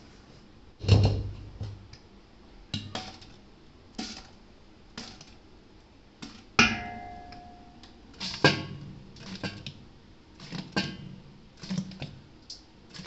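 A steel spoon clanking and scraping against stainless steel pots as a thick green paste is stirred and scraped from one pot into another: a dozen or so sharp knocks at uneven intervals, one about six and a half seconds in ringing on briefly like struck steel.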